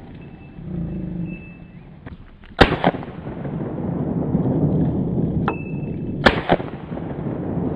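Double Star 9mm AR-15 pistol fired: two single shots about three and a half seconds apart, each followed a fraction of a second later by a fainter crack.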